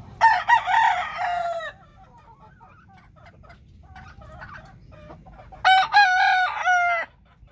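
Gamecock roosters crowing: two full crows, each about a second and a half long, the second about five seconds after the first, with faint short clucks in between.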